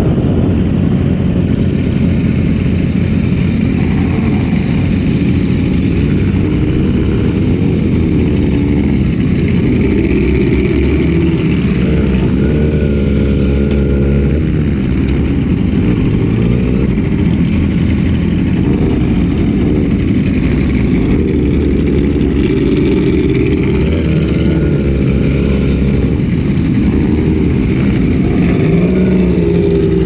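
Sport motorcycle engine running at road speed under a steady rush of wind, its pitch rising and falling several times as the throttle opens and closes.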